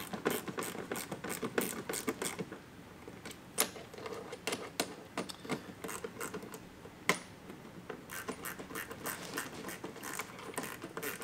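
A 90-degree screwdriver being turned in short strokes to drive Phillips screws through a plastic mud flap into a car's bumper, making rapid irregular clicking, with a couple of sharper clicks partway through.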